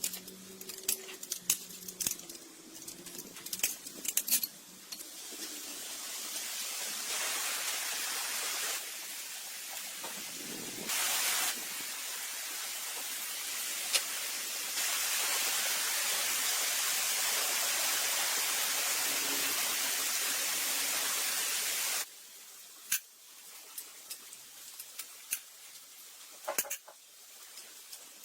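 A long spraying hiss that builds up in steps, holds for about fifteen seconds and cuts off suddenly. There are light clicks and taps before and after it.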